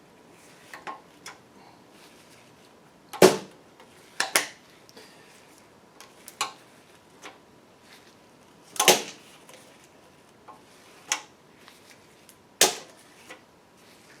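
Sharp metal clicks and clinks, about six loud ones a second or two apart among fainter ticks, as valve lifters are pulled from a 1965 Ford Mustang engine and set down.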